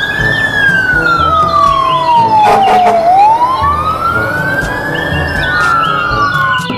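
Fire truck siren wailing, its pitch sweeping slowly up and down twice, with a short noisy blast about two and a half seconds in.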